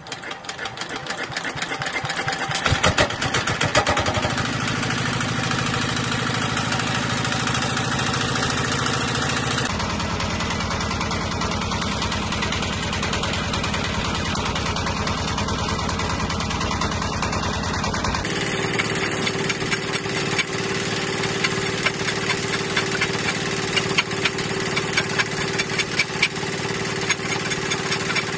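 Single-cylinder stationary diesel engine starting and picking up speed over the first few seconds, then running steadily with a fast knocking beat. From about two-thirds of the way in, a steady hum joins it as the engine drives the wood lathe spinning a large log.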